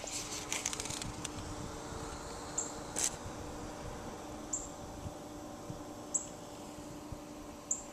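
SMA Sunny Boy 5000US grid-tie inverter running near full output, about 4.25 kW of its 5 kW, with a steady hum made of several fixed tones. A short high chirp repeats about every one and a half to two seconds, and there is a run of light clicks in the first second and one sharp click about three seconds in.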